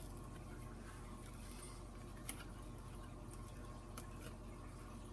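Faint handling of T-pins and foam core board, with two small clicks, one about two seconds in and one near four seconds, over a steady low room hum.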